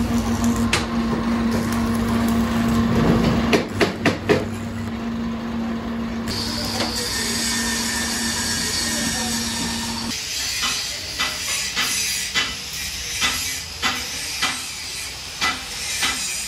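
Arc welding on excavator track chain links: a steady hum with crackling and hissing, and a few sharp metal clinks about four seconds in. About ten seconds in the hum stops and hammer blows ring on the steel link, a sharp strike roughly every second.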